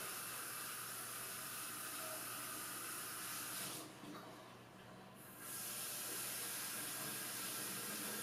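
A faint, steady hiss, mostly high-pitched, that drops away for about a second and a half midway and then comes back.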